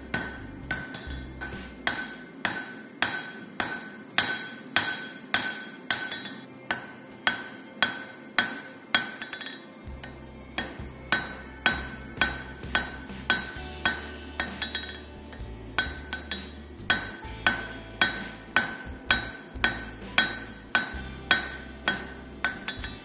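Hammer blows on steel being forged into a scabbard chisel, about two a second in a steady rhythm, each strike ringing with a clear metallic tone. A short pause comes near the middle before the hammering resumes.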